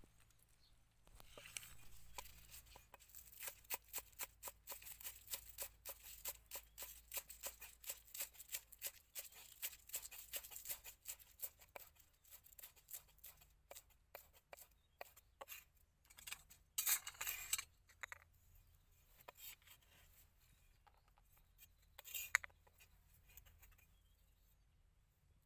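Large kitchen knife chopping green onions on a wooden chopping block: a quick, steady run of light knocks, thinning out to scattered cuts, with a short scrape of the blade across the board about two-thirds of the way in.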